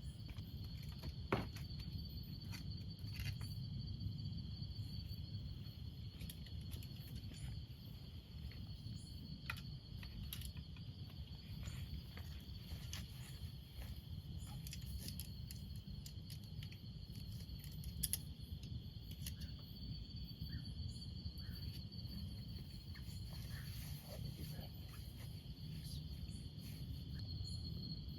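Forest insects trilling in a steady high chorus, with a low rumble underneath and scattered light clicks.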